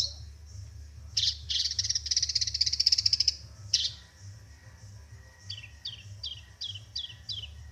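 Long-tailed shrike (cendet) singing: sharp single calls, then a rapid chattering trill for about two seconds, and near the end a run of six quick down-slurred notes.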